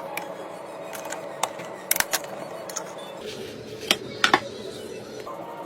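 Scattered sharp clicks and taps of hard plastic and metal computer parts being handled and fitted together, several in quick succession about two seconds in and again near four seconds.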